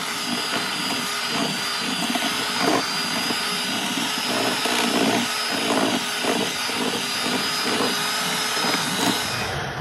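Black+Decker electric hand mixer running steadily with a thin high whine, its beaters churning through cooked pot roast in a metal pot to shred it, with a recurring thud roughly twice a second as they work through the meat. The mixer cuts off near the end.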